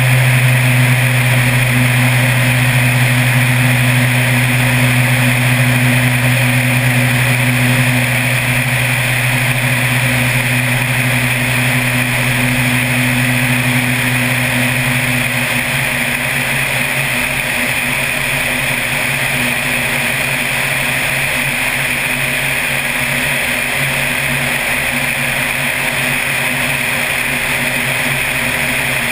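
Floatplane's piston engine and propeller running at high power in a climb just after lifting off the river, with wind rushing past the wing-mounted camera. The low engine drone softens about halfway through.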